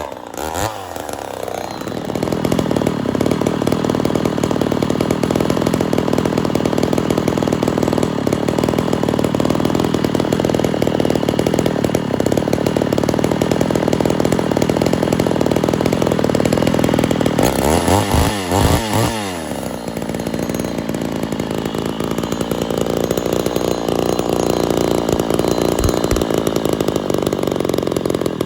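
Two-stroke chainsaw, the ported Poulan 245A, running at high throttle. About two-thirds through, the revs drop and are blipped back up a few times before it runs steadily again.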